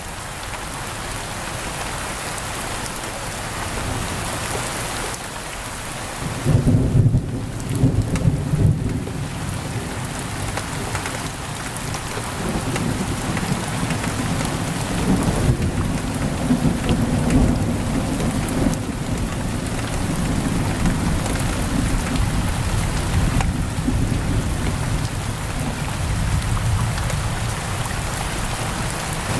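Heavy rain on a window, a steady hiss, with low rolling thunder coming in about six seconds in. The thunder is loudest just after it begins and keeps rumbling on.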